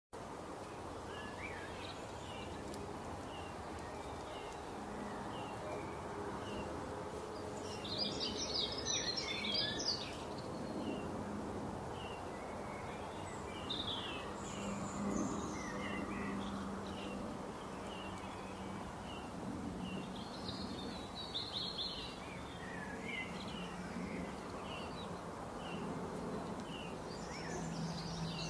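Small songbirds chirping in short, repeated calls, with livelier bursts of song every several seconds, over a steady rushing background of outdoor ambience.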